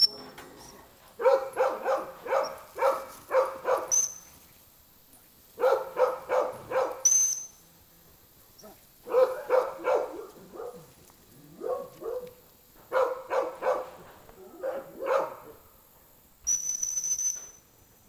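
A dog barking in five quick runs of sharp barks, each run lasting one to three seconds. A high dog-training whistle sounds in a few short blasts and once in a longer blast of about a second near the end.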